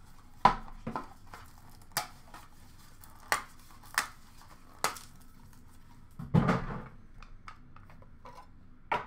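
Hands handling a trading-card box and packs: scattered sharp clicks and taps, with a longer rustle a little past the middle.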